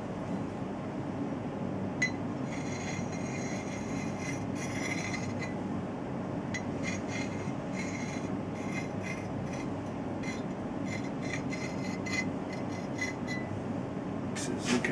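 A flat file drawn in repeated strokes along the steel bit of a reshaped 3.5 lb felling-axe head, sharpening the edge. Each stroke is a short scrape with a light metallic ring, in two runs with a pause of about a second between them.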